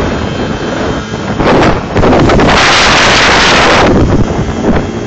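Wind buffeting the microphone on a moving motorcycle, over motorcycle engine and road noise. The wind noise gets louder about two seconds in and eases off shortly before the end.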